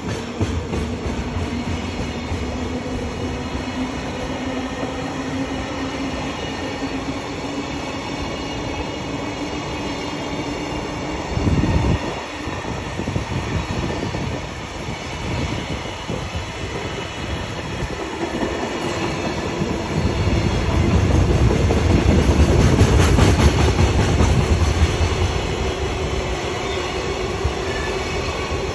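A long freight train of Koki container wagons rolling slowly past, its wheels rumbling and clattering along the track. There is a brief louder knock about 11 seconds in, and the low rumble grows louder for several seconds near the end.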